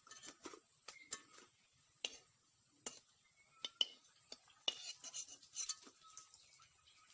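Metal spatula scraping and clinking against a metal karahi as fried jute-leaf pakoras are lifted out once they are done: a string of irregular sharp clicks and short scrapes, busiest about five seconds in.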